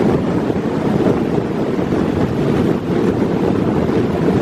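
Strong breeze buffeting the microphone: a steady, loud low rumble with no distinct engine tone, over choppy water washing.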